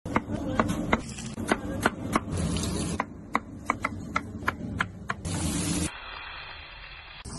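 Chef's knife chopping mushroom and green pepper on a cutting board: a dozen or so sharp knocks of the blade against the board, at an uneven pace. About five seconds in, this gives way to a steady hissing sizzle of vegetables frying in a pan.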